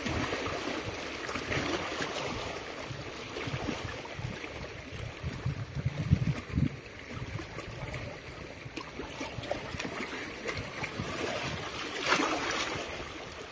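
Wind on the microphone over small waves lapping, an even rushing noise with a few low buffets about halfway through and a louder rush near the end.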